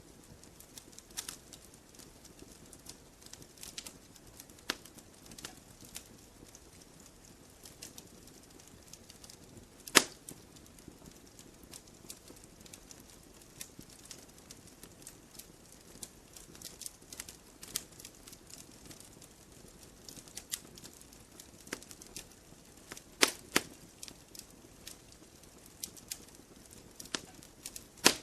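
Campfire logs burning: irregular crackling with many small snaps and sharp pops over a soft hiss. A few louder pops stand out, the loudest about ten seconds in.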